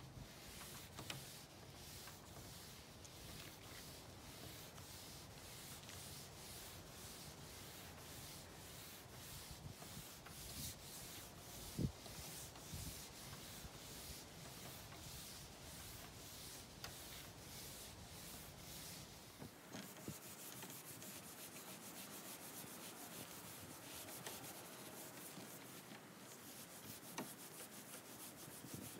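#0000 steel wool scrubbing a teak tabletop wet with mineral spirits: quick back-and-forth rubbing strokes, about two a second, as the pad lifts pills of leftover stripper residue and grime off the wood. One short knock about twelve seconds in.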